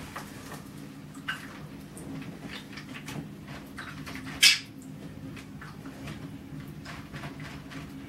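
Fingers tapping and swishing water in a shallow plastic bird-bath dish: a run of small light taps and ticks, with one louder splash about halfway through.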